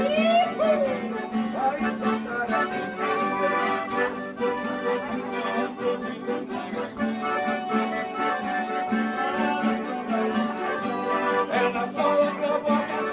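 Piano accordion and two nylon-string acoustic guitars playing an instrumental passage together. Sustained accordion notes sound over the guitars' steady strummed rhythm and repeated bass notes.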